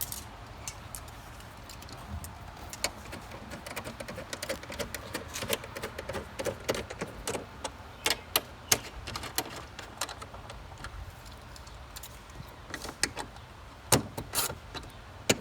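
Ratchet wrench and socket clicking and clinking while working the 7 mm bolts that hold the air cleaner down, with quick runs of clicks and scattered sharp metallic taps.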